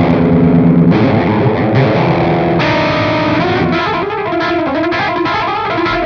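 Distorted electric guitar playing a melodic instrumental line, the notes moving faster and higher about two and a half seconds in.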